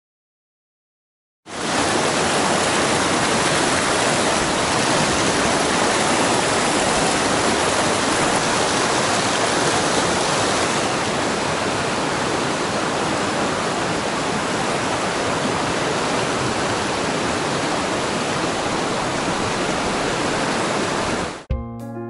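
Mountain stream rushing over rocks and small rapids, a steady, even roar of water. It starts suddenly after about a second and a half of silence and cuts off just before the end.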